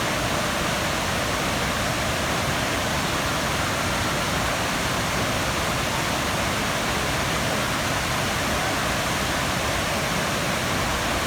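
Steady, full rush of a large waterfall, an even wash of falling water with no breaks.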